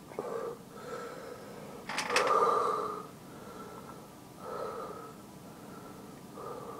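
A man breathing hard through his open mouth, a long breath out about every two seconds, as he copes with the burn of a Brain Strain superhot chili pepper. Two sharp clicks come about two seconds in, just before the loudest breath.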